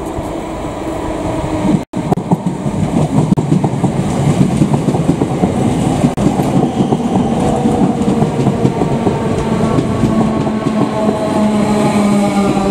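Train running along the rails, wheels clattering over rail joints, with a motor tone that slowly falls in pitch in the second half. The sound drops out for an instant about two seconds in.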